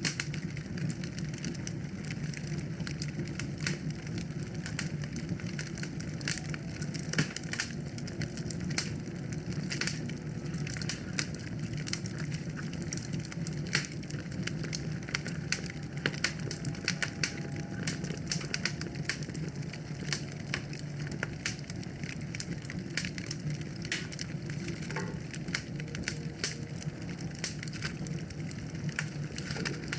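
Wood fire burning in a fireplace: a steady low rush of flames with frequent irregular crackles and sharp pops from the burning logs.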